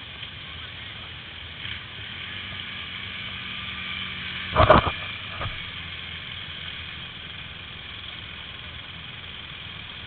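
ATV engine running steadily at low speed as the quad churns through deep muddy water, with a sudden loud burst about halfway through.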